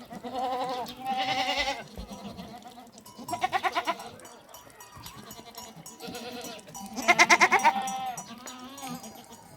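Goats bleating: four long, quavering calls from more than one animal, the loudest near the end.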